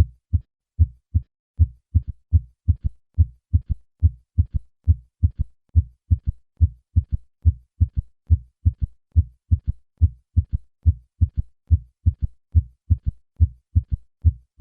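Heartbeat with a third heart sound: a regular gallop rhythm of short low-pitched thuds, each first and second heart sound followed in early diastole by a fainter low third sound. This triple rhythm is a ventricular gallop.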